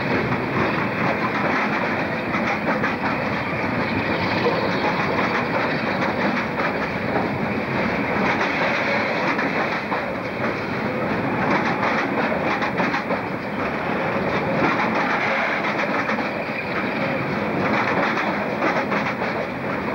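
Container freight train's wagons rolling past close by at a steady speed: a continuous rumble of wheels on rail, with a rapid clatter of clicks as the wheels cross the rail joints.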